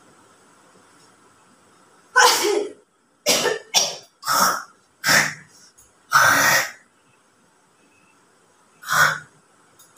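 A person sneezing over and over: about seven short, sharp sneezes, several in quick succession in the middle and one more near the end.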